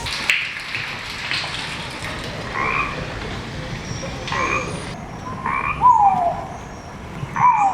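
Frogs croaking, a call about every second and a half. From the middle on, each call ends in a short falling note.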